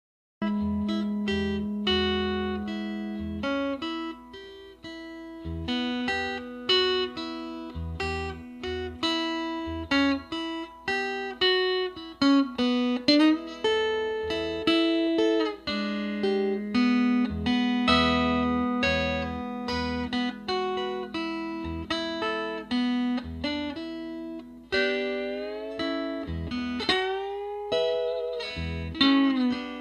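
Six-string box-bodied Smokestack guitar fingerpicked in a bluesy style: picked melody notes over a droning low string, with sliding, gliding notes near the end.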